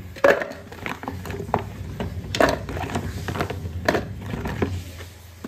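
Firm green ambarella fruits packed by hand into a plastic tub, clunking against the plastic and each other in irregular knocks, two or three a second.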